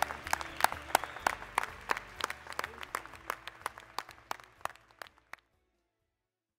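Applause, with individual hand claps standing out, fading down and ending about five seconds in.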